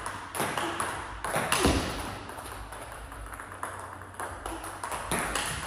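Table tennis balls being struck with bats and bouncing on the table: a quick run of sharp pings, about two a second, the loudest about a second and a half in, then a sparser stretch and more hits near the end.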